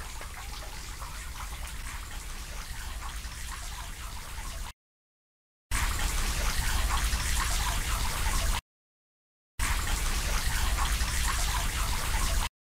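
Light rain pattering steadily, a fine crackling hiss; it cuts to silence twice for about a second, and is louder after the first break.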